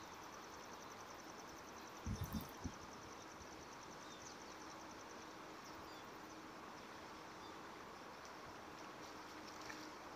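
Faint insects trilling in a fast, even pulse over a steady outdoor hiss. A few soft low thumps come about two seconds in.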